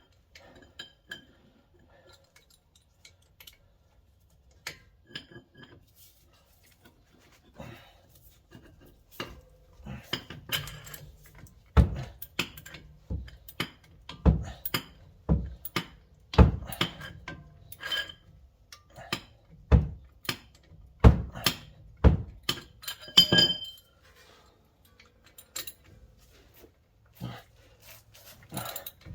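Metal tools clinking and knocking against a brake caliper bolt as a breaker bar is worked on a stuck bolt. There are a few light clinks, then a run of sharp metallic knocks about one a second, some ringing briefly.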